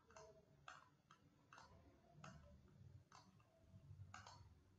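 Near silence broken by about eight faint, irregularly spaced clicks of a computer mouse.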